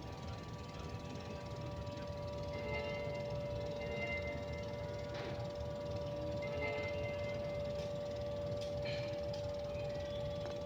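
Alert siren sounding one steady, held tone that does not rise or fall, over a low background rumble.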